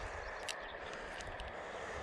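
Steady faint outdoor background hiss by the water, with a few light clicks about half a second in and again a little past a second, from handling small gear.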